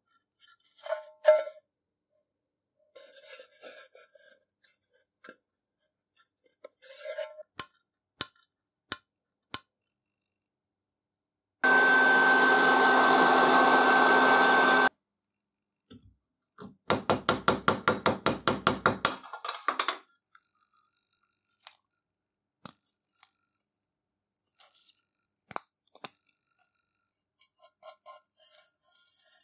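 Handheld heat gun running for about three seconds, a steady rush of air with a hum and a high whine, aimed at the lamp's reflector to soften it with heat. Around it come scattered clicks and taps from handling the lamp's metal housing, and a fast rattle lasting about two seconds shortly after the heat gun stops.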